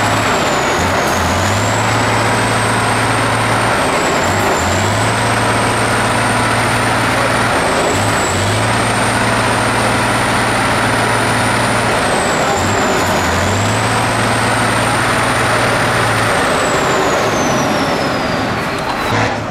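Turbo-diesel truck engine working hard, with a high turbo whistle over the engine note. The engine note and the whistle dip briefly four times, about every three to four seconds, and near the end the whistle falls away.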